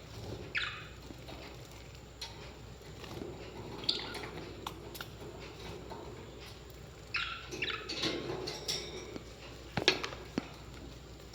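Small pet parrots giving short, falling chirps every few seconds, with a few sharp clicks or taps near the end, the loudest of them about ten seconds in.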